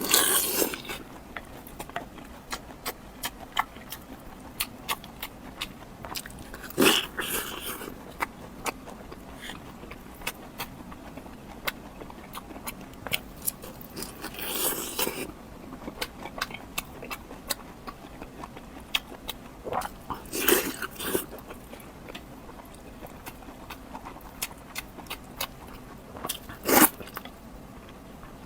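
Close-miked eating: chewing with a steady run of small mouth clicks, and a louder bite or crunch every several seconds, about five times.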